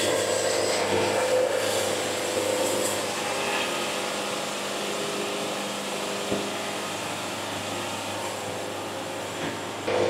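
Wood-Mizer LT70 Wide band sawmill running a cut through a walnut cant: the steady drone of the saw head with the hiss of the band blade in the wood, easing slightly a few seconds in.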